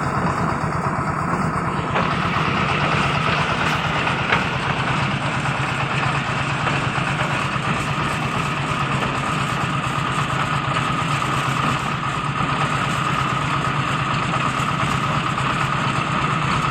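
Concrete mixer machine's engine running steadily, a continuous mechanical rumble with a steady hum above it.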